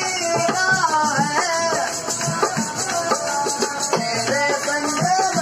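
Folk song sung by a man's voice, accompanied by a dholak beaten by hand in a quick, steady rhythm, with a rattling jingle running through it.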